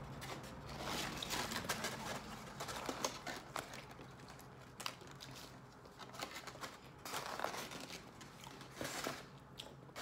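Styrofoam takeout clamshell box being handled and closed over its paper lining: scattered crinkling, creaking and light taps in several short clusters.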